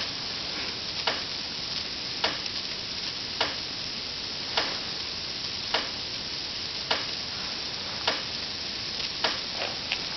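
Steady fizzing of gas bubbles in an HHO electrolysis cell running on tap water and lye, with a sharp click repeating evenly a little slower than once a second.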